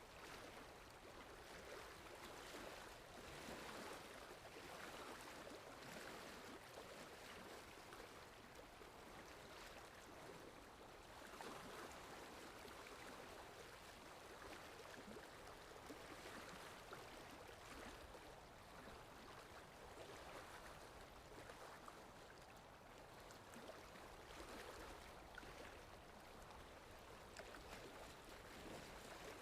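Faint, steady wash of sea waves, gently swelling and easing every few seconds.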